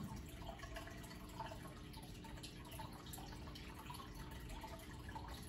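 Aquarium water bubbling, with air bubbles rising and popping at the surface in a continuous run of small irregular plinks over a faint steady hum.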